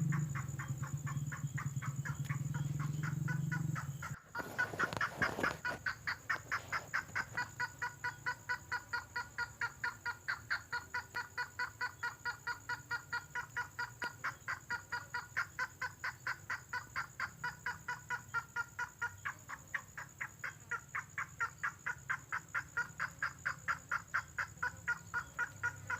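Tengkoah merah bird call used as a lure: a long, even series of short repeated notes, about four a second, starting about four seconds in. Before that there is a low steady hum.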